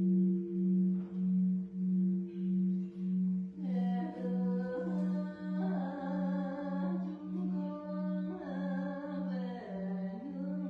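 A great bronze temple bell's low hum rings on, pulsing about twice a second as it slowly fades. About four seconds in, a voice starts chanting over it in long held notes.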